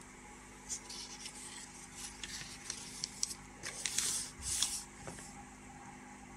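Pages of an old paper instruction booklet being handled and turned: a series of short papery rustles and scrapes, loudest around four seconds in.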